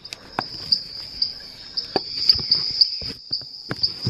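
Recorded rainforest soundscape: a steady high insect trill like crickets, with brighter pulses about two to three times a second, and sharp clicks now and then.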